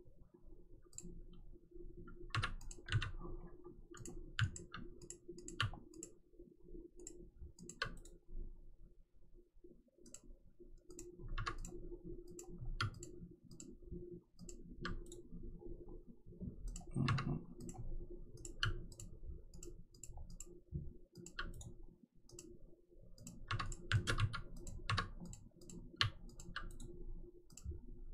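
Scattered clicks of a computer mouse at irregular intervals, some in quick clusters, over a faint steady hum.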